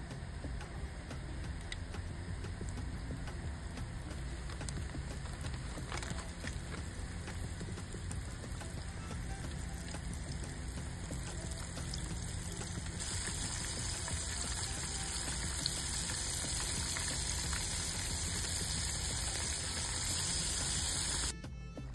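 Breaded shrimp frying in hot oil in a pan, a steady sizzle that grows louder a little past the middle as more pieces are dropped in, then cuts off abruptly near the end.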